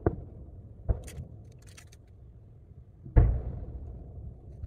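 Distant booms of large aerial firework shells heard from over 4 km away. There are two lighter thuds in the first second, then the loudest boom about three seconds in, fading slowly as a low rumble.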